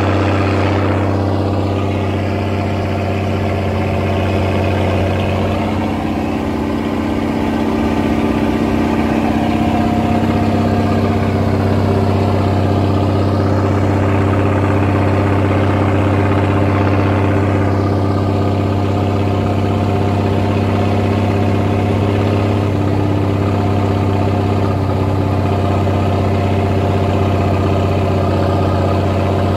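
M35A2 military truck's turbocharged multifuel inline-six diesel engine running steadily, heard at its vertical exhaust stack. The level dips briefly about six seconds in, then comes back up.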